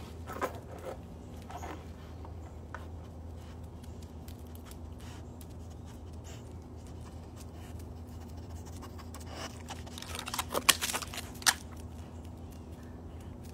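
Dogs' paws and claws pattering and scraping on a concrete patio over a steady low hum, with a burst of loud, close crackling and scraping about ten seconds in as a large dog moves right by the microphone.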